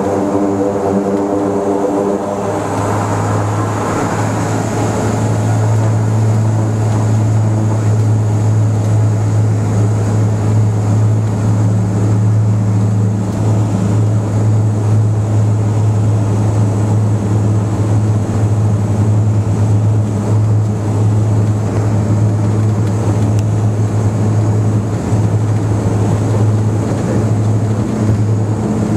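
The twin Garrett TPE331 turboprop engines of a BAe Jetstream 32 at takeoff power: a loud, steady low propeller drone under a high turbine whine. About two and a half seconds in, the engine tones shift and settle into that steady drone as the power comes up.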